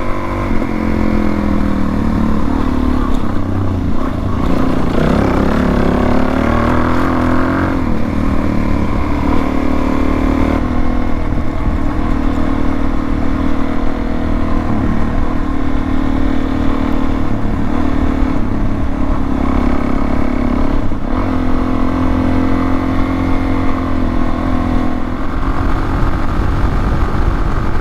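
Motorcycle engine running at road speed while riding, its pitch rising and falling a few seconds in and then holding mostly steady as it cruises.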